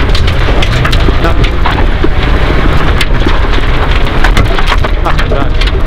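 Rally car at speed on a gravel stage, heard from inside the cabin: a steady rumble of engine and tyres on loose gravel, with a constant rattle of stones and gravel flung against the underbody and wheel arches.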